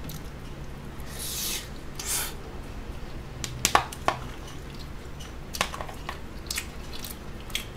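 Close-up eating sounds: a mouthful being chewed, with a few sharp clicks of a metal spoon against a plastic rice tub and two short hissy sounds about one and two seconds in.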